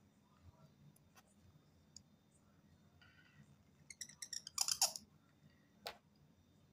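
Faint scratching of a broad-nibbed bamboo calligraphy pen (qalam) drawing a stroke of ink across paper: a run of quick clicks about four seconds in builds to a louder rasp just before five seconds, followed by one sharp click about a second later.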